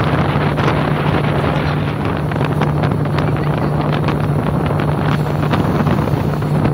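Motorboat engine running at speed with a steady low pitch, and wind buffeting the microphone.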